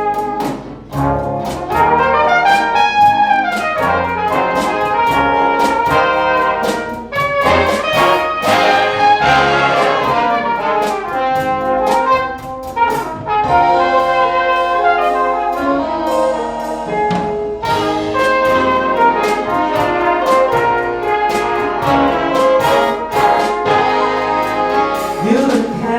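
A jazz big band playing an instrumental passage of a pop ballad, with brass to the fore over the drums and rhythm section.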